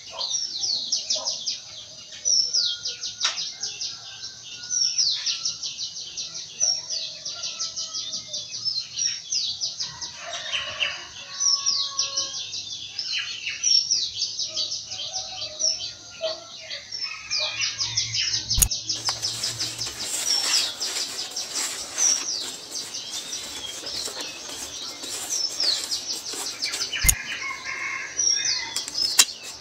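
Many small birds chirping continuously, with quick repeated downward-sweeping chirps. About two-thirds of the way through, a steady rustling hiss joins them, marked by two sharp clicks.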